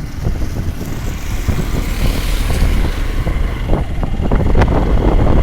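Wind buffeting the microphone over steady road and vehicle noise while riding; a hiss swells and fades about two to three seconds in.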